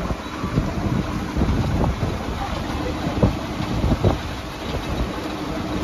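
Wind buffeting the microphone over a steady vehicle hum at a tram stop, with a few scattered sharp knocks.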